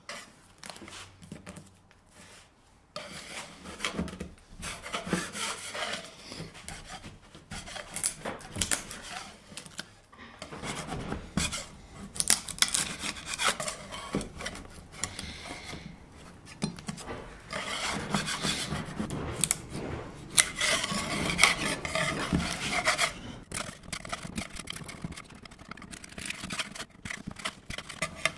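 Metal scraper blade scraping bubbled veneer off a wooden dresser top in repeated uneven strokes, faint for the first few seconds and then louder.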